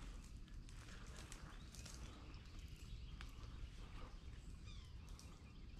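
Quiet woodland ambience: a low, steady wind rumble on the microphone, with scattered faint clicks and rustles and a few short, faint bird chirps.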